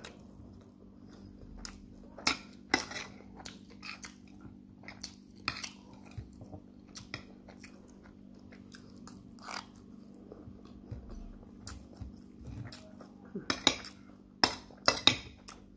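Metal spoon clinking and scraping against a plate of jollof rice, with chewing between the scoops; a quick run of sharp clinks comes near the end.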